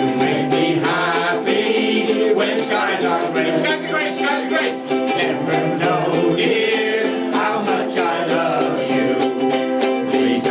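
A group of ukuleles strumming chords together in a steady rhythm, with voices singing along.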